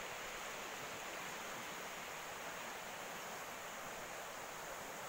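Fast-flowing river rushing steadily, an even, unbroken water noise.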